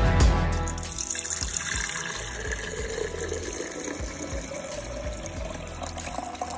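Thick pink fresh fruit juice poured from a pitcher into a glass mason jar, a steady pouring and gurgling that rises slowly in pitch as the jar fills. Drum-backed music fades out during the first second.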